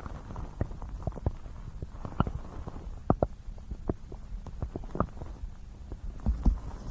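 Human stomach gurgling picked up close: an irregular scatter of quick pops and bubbling clicks over a low rumble.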